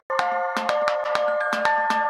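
Background music with a steady beat and sustained bell-like tones, cutting out for a split second at the very start before resuming.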